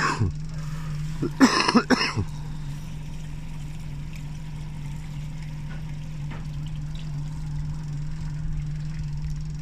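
Boat engine running steadily at low speed, a constant low hum. A couple of short noisy bursts come about one and a half to two seconds in.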